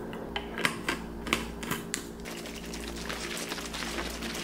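A scoop clicking sharply against the mouth of a glass bottle about six times as greens powder is tapped into the water, then a denser stretch of soft clicks and rustling as the bottle is handled and shaken.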